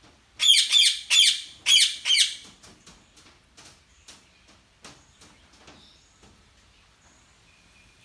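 Indian ringneck parakeet screeching: a quick run of about six loud, harsh, high-pitched calls, each falling in pitch, over about two seconds, followed by faint scattered chirps and ticks.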